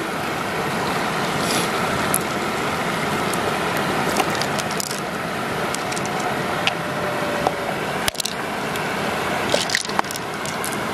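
Wet squishing and scattered clicks of fingers pressing and pulling the flesh of a freshwater pearl mussel, over a steady rushing noise.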